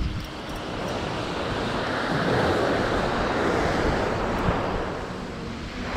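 Surf on a beach: a wave swells up and washes in, loudest about two to four seconds in, then ebbs away. Wind rumbles on the microphone.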